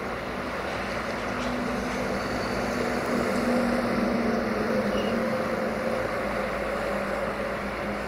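Freight train of covered hopper wagons rolling away along the track: a steady rumble of wheels on the rails with a faint low hum under it, swelling slightly about halfway through.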